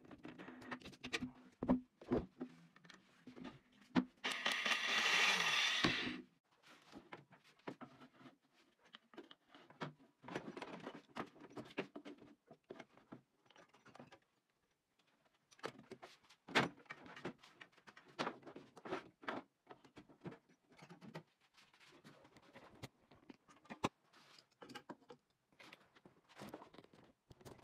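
Workshop handling noises: scattered knocks, taps and rustling as tools and boards are moved about on a worktable. About four seconds in there is a louder scraping hiss that lasts about two seconds.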